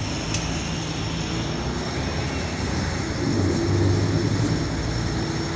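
Volvo B12BLEA articulated bus's diesel engine and drivetrain running under way, heard from inside the passenger cabin as a steady low hum with a thin high whine over it. It swells louder about three seconds in, then eases a little.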